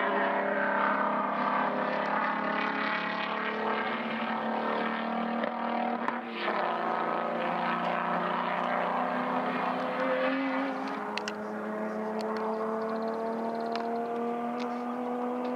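Race car engines running at speed on the circuit, with the engine note climbing steadily over the second half as a car accelerates.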